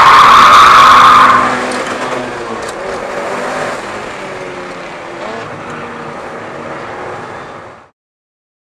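Onboard sound of a Mitsubishi Lancer Evolution VIII's turbocharged four-cylinder engine running on track, under a loud rushing hiss of tyre and wind noise for the first second or so. The hiss then falls away and the engine carries on more quietly until the sound cuts off suddenly near the end.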